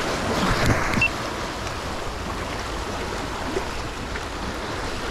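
Small sea waves washing and splashing around shoreline rocks, a steady rush of surf.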